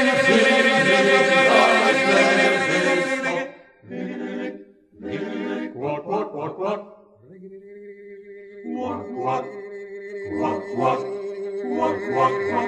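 Male vocal octet singing unaccompanied in close harmony. A loud held chord breaks off about three and a half seconds in, a few short sung phrases follow, and then a low held note sounds under quick, evenly pulsed syllables.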